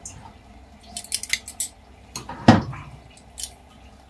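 Metal oven rack clinking as it slides back into a gas oven, a run of light metal clicks, then the oven door shutting with a thud about two and a half seconds in and a fainter knock after it.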